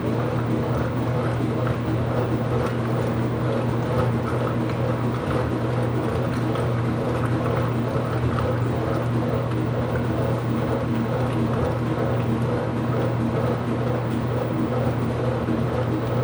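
IPSO washing machine running mid-cycle: a steady motor hum with a low drone and higher tones that holds unchanged.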